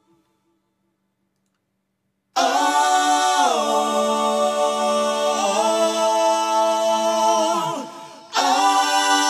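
Silence, then about two and a half seconds in, stacked a cappella backing vocals sing a held 'oh' harmony with no instruments, stepping down in pitch and later back up. They fade out, and after a short break a second vocal phrase comes in near the end.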